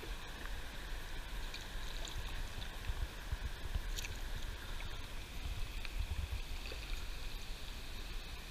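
Steady rush of shallow river water flowing around a kayak, with a low uneven rumble beneath and a few faint clicks.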